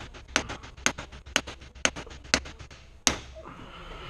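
Hammer blows driving the CV joint onto the axle shaft's splines, struck on the old nut threaded on to protect the end. Steady strikes about two a second, each with a lighter rebound tap, then one last blow about three seconds in.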